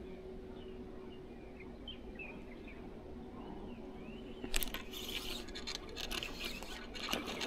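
Baitcasting reel cranked steadily through a soft-lure retrieve, with faint bird chirps. About four and a half seconds in comes a sudden loud click, then a run of rapid crackling clicks that continues to the end.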